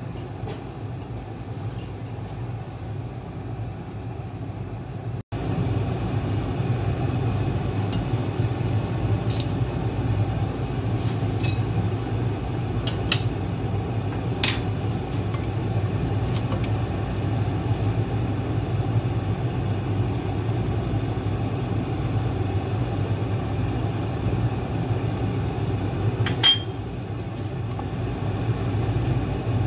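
A pot of pork boiling on the stovetop with a steady low rumble. The sound breaks off for an instant about five seconds in and comes back louder. A few light clinks of a spoon against the pot fall in the middle and near the end.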